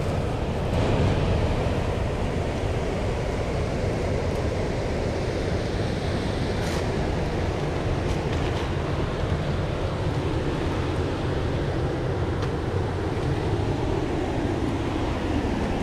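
Steady rush of a small creek's fast-flowing water, with low wind rumble on the microphone and a few brief rustles of brush.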